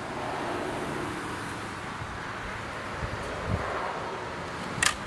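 Steady outdoor wind and distant road noise. Near the end come two sharp clicks in quick succession from a break-barrel pellet rifle as it is cocked and loaded.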